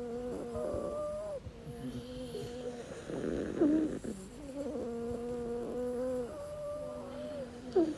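Snoring with a whistling, pitched tone on each breath, in slow cycles of about four seconds. Each cycle ends in a brief, sharp, louder sound, about three and a half seconds in and again near the end.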